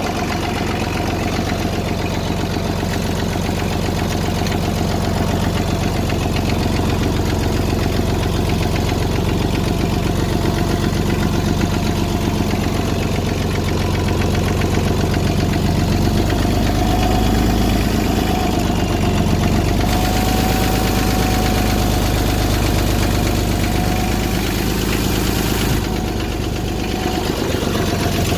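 McCormick D-324 tractor's two-cylinder diesel engine running steadily, its low drone unbroken throughout.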